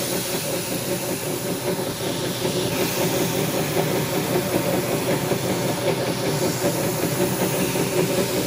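Metal lathe running with sandpaper and abrasive cloth held against a spinning steel drill press column, polishing it: a steady hiss of abrasive on steel over the lathe's running hum.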